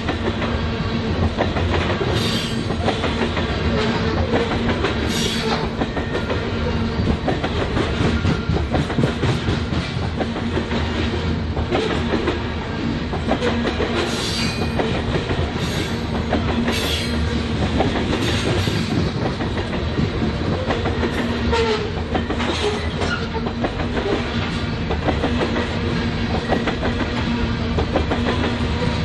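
Loaded grain train's covered hopper cars rolling past close by: a steady rumble of steel wheels with clickety-clack over the rail joints, and several brief high-pitched squeals from the wheels on the rail.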